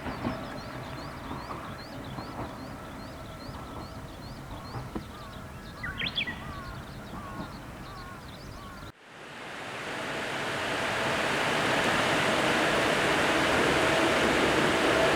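Birds chirping over a quiet background. About nine seconds in, the sound cuts abruptly, and then the rumble of an approaching Ohmi Railway old-type electric train swells steadily.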